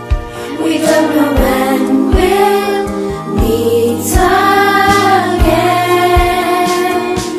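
A song: voices singing a melody over a backing track with a steady drum beat.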